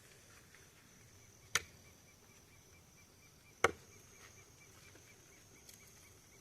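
Two sharp cracks or knocks about two seconds apart, the second the louder, over a faint, steady, evenly pulsing chirp of night insects.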